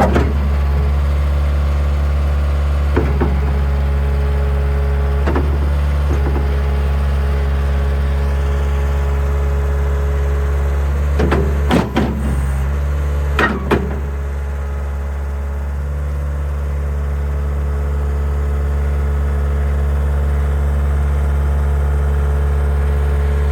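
Takeuchi TL126 compact track loader's diesel engine running steadily, broken by a few sharp clunks, the loudest pair a little before halfway. Afterwards the engine note drops slightly and slowly builds back up.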